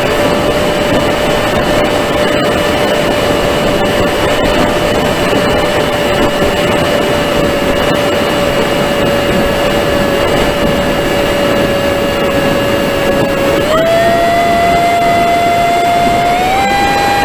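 Emax 2205 2600kv brushless motor and propeller of a Wing Wing Z-84 foam flying wing on a 4S battery, heard on board in flight: a steady high whine over rushing wind. Near the end the whine steps up in pitch twice as the motor speeds up.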